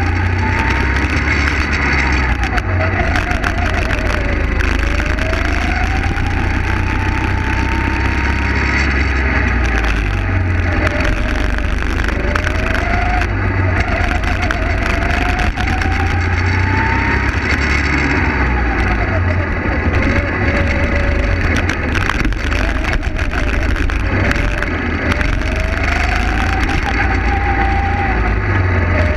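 Go-kart engine heard onboard, its revs climbing steadily along each straight and dropping sharply into each corner, about six times over, above a heavy low rumble.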